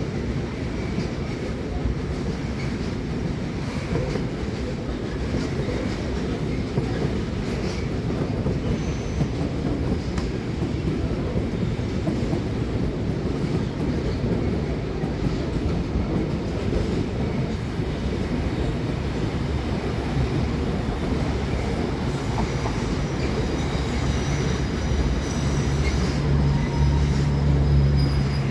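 A train rolling through the station: a steady rumble and clatter of wheels over the rails, with some wheel squeal. From about two-thirds of the way in, thin high tones and a low steady hum join in and grow louder toward the end.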